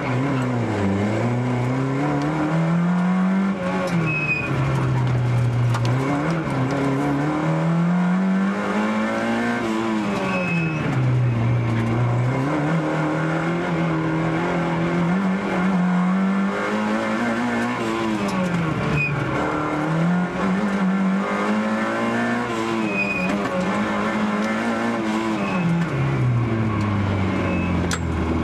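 Peugeot 205 GTI 16-valve engine heard from inside the cabin, revving hard and falling back again and again every few seconds as the car accelerates and brakes through a slalom course. Near the end the revs drop to a low steady note.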